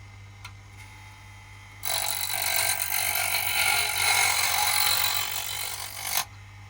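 Mini bench grinder with a workpiece pressed against its spinning wheel: a loud hissing grind starts about two seconds in, lasts about four seconds and stops abruptly as the piece is lifted off. The small motor bogs down a little under the pressure.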